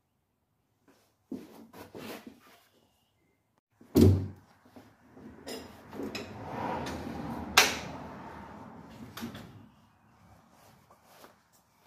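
Handling knocks and clatter: the recording phone is moved and set down with a loud thump about four seconds in. A few seconds of rustling and scraping with a sharp click follow, then it goes quiet.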